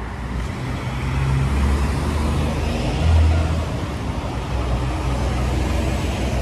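Road traffic on a city street: a steady rumble of passing cars, swelling louder briefly about three seconds in as one goes by.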